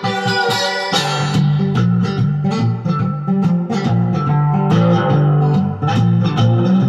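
Guitar in open G tuning being played, with a harmonica in a neck rack joining in over it: steady, continuous playing with held notes.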